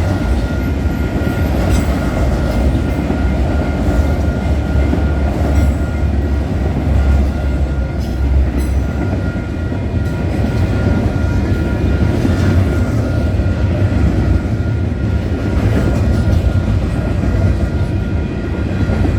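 Freight train of autorack cars rolling past close by: a steady rumble of steel wheels on rail with scattered faint clicks and a thin steady high tone over it.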